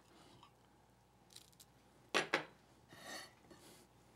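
Quiet room tone, broken about halfway through by two sharp clacks in quick succession from a knife and plate being handled, then a brief soft rustle.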